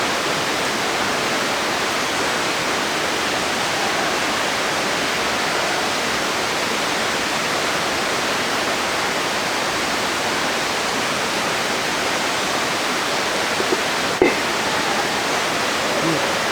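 Waterfall pouring, a steady rushing hiss of falling water and spray, like rain. There is a brief knock about fourteen seconds in.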